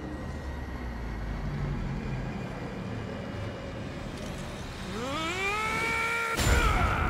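Animated-action sound effects: a low rumbling drone, then a rising electronic whine that climbs and holds for about a second and a half, cut off by a sudden loud impact about a second before the end.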